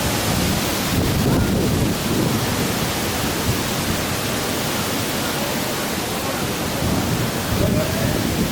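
Strong wind blowing across the microphone: a steady, loud rushing noise that swells and eases a little.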